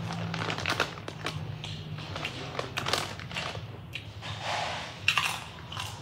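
Cool Ranch Doritos tortilla chips being bitten and chewed with crisp, irregular crunches, mixed with the crinkling of the plastic chip bag.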